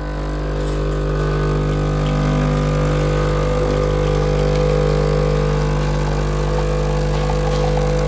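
Breville Barista Touch espresso machine's pump humming steadily while it pulls a single shot of espresso, growing a little louder over the first couple of seconds.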